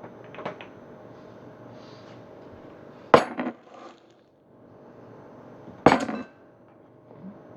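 Two sharp knocks of kitchenware set down or knocked against a counter, about three seconds apart, each followed by a brief lighter clatter.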